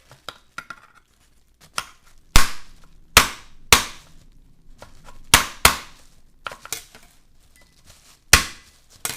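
A kitchen knife being hammered with a second knife to drive its blade through a blue crab claw on a cutting board: about seven sharp metal knocks at uneven intervals, the loudest a couple of seconds in.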